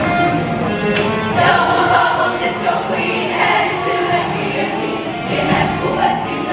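Women's show choir singing over a live backing band, the voices coming in strongly about a second and a half in.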